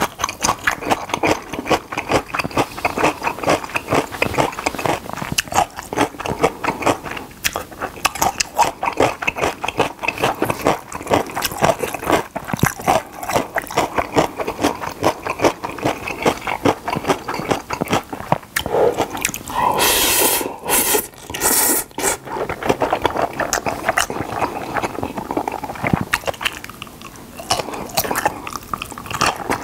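Close-miked eating of jjapaghetti black-bean sauce noodles: constant wet chewing and smacking, with a louder, hissy slurp about twenty seconds in. Near the end comes a crunchy bite into a strip of pickled yellow radish (danmuji).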